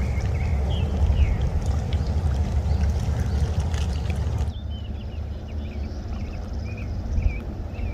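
Lakeside outdoor ambience: a steady low rumble with short high chirps over it. The level and character change abruptly about halfway through, the rumble dropping.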